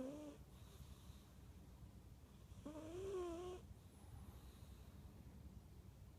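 Faint snoring, each snore a whistling, wavering tone on the breath: one trails off just after the start, and another comes about three seconds in.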